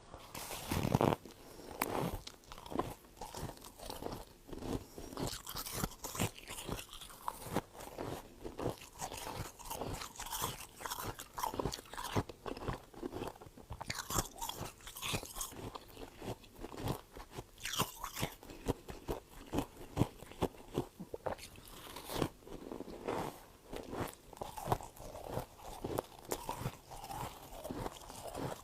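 A mouth crunching and chewing freezer frost close to the microphone: a continuous, irregular run of crisp crunches and crackles.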